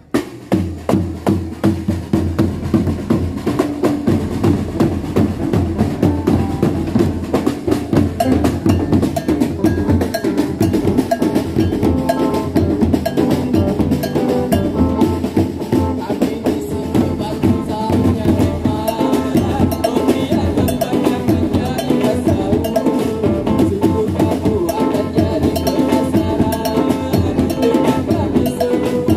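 Patrol sahur percussion music: fast, dense drumming on drums and hand percussion, with held melodic tones growing in from about ten seconds in.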